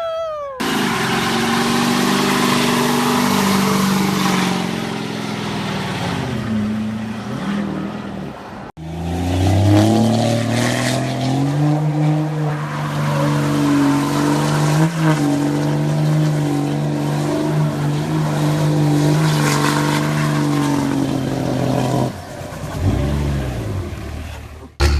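Diesel pickup truck engines held at high revs during burnouts, under the steady hiss of spinning tires. The sound cuts abruptly from one clip to the next about nine seconds in, where the revs climb and then hold. Near the end they drop away, with one short rev blip.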